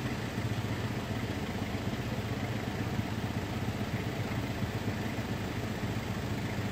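A car engine idling steadily: an even, low hum.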